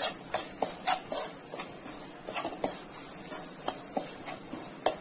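Steel spoon stirring and scraping against a non-stick pan, about three clicks a second, as a ground pepper masala fries in oil with a steady faint sizzle underneath.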